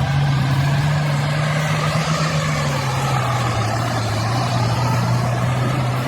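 Engine of a piece of heavy machinery running steadily, its pitch easing a little lower about two seconds in.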